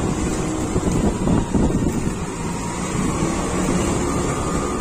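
Two-wheeler engine running steadily at low road speed, with wind noise on the microphone and tyres hissing on a wet road.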